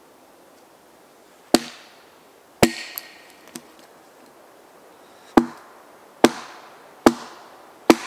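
Hatchet chopping and splitting a short piece of firewood on a log: six sharp blows at irregular spacing with a few lighter taps between, one blow followed by a brief ringing tone.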